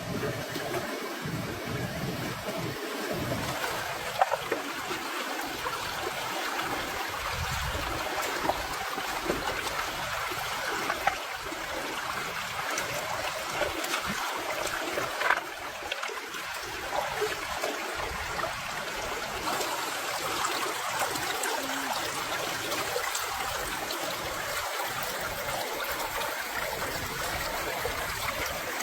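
Water trickling steadily, with a few small knocks or clicks over it.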